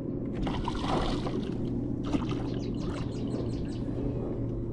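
Water trickling and lapping around a fishing kayak over a steady low hum, with a short run of quick high ticks about three seconds in.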